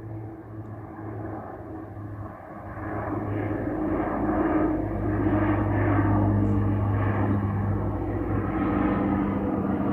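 Saab 340B twin-turboprop airliner climbing out after takeoff, a steady propeller drone with a low hum that grows louder from about three seconds in as it approaches.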